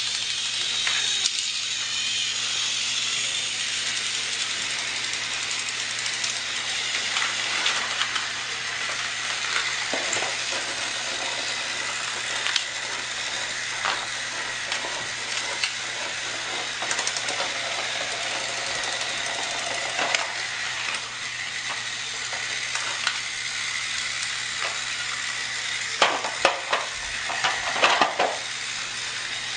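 Motorised toy trains running on their track: a steady whirring hum with scattered small clicks, and a quick run of sharper clicks and clatters near the end.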